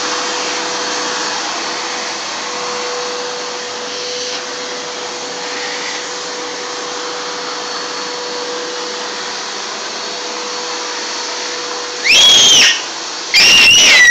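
Vacuum cleaner running steadily, a constant whirring hum. Near the end two loud, high-pitched squeals, each rising and then falling in pitch, ride over it.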